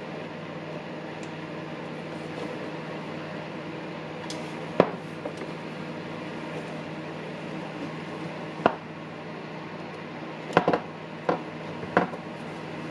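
Handful of sharp clicks and knocks from small tool parts being handled and fitted by hand, one about five seconds in, one near nine seconds, and a quick cluster near the end, over a steady low hum.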